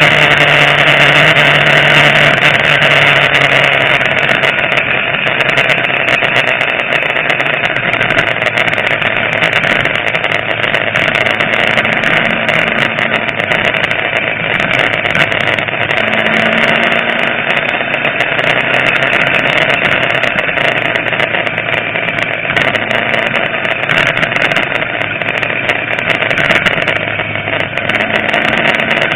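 Motorcycle engine running while riding at speed, its note stepping down about four seconds in and shifting several times after, under a loud steady rush of wind noise on the bike-mounted microphone.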